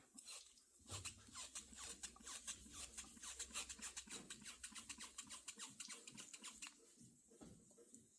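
Wet sanding of a painted car hood by hand with fine-grit sandpaper: quick, rhythmic scratchy strokes several times a second, which ease off near the end.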